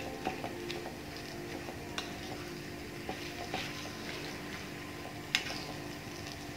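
Wooden spoon stirring and breaking up minced chicken and onion in a frying pan, with a faint sizzle and scattered scrapes and taps of the spoon against the pan, the sharpest tap about five seconds in. A faint steady hum runs underneath.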